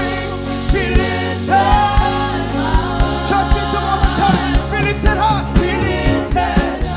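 Live gospel worship music: a singer's voice wavering over a full band, with bass and drums keeping a steady beat.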